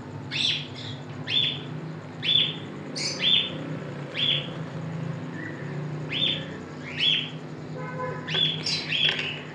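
A small bird chirping repeatedly: about a dozen short, high chirps at irregular intervals.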